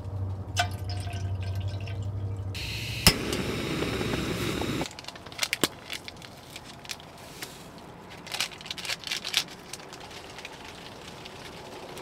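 Water poured from a bottle into a cooking pot, a steady splashing and filling for the first few seconds. After that, a scatter of sharp ticks and small crackles.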